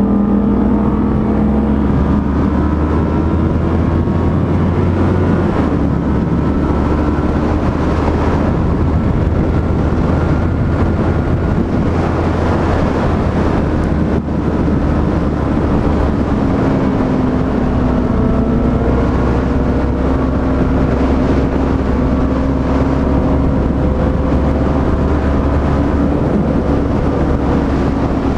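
Yamaha MT-03's parallel-twin engine running at steady cruising revs, its pitch drifting gently up and down, with a slight drop about halfway through.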